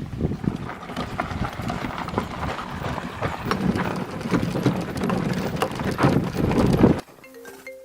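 Horse hooves clip-clopping over a low rumble, an irregular run of knocks typical of a horse-drawn cart. It cuts off abruptly about seven seconds in, and a short electronic ringtone-like melody of single notes starts.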